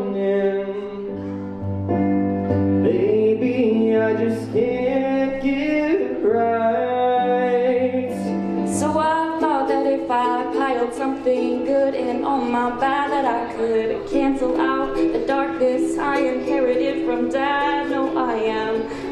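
A man singing a slow song over long held chords. About nine seconds in the music changes abruptly to a woman singing to a strummed ukulele.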